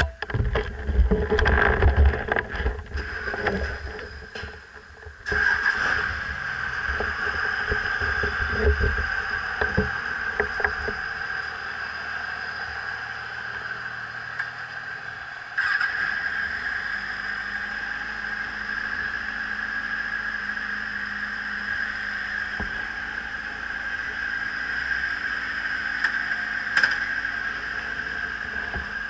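Kawasaki sport bike engine running steadily at a standstill, heard through a helmet-mounted action camera, with knocks and rustling from handling during the first five seconds.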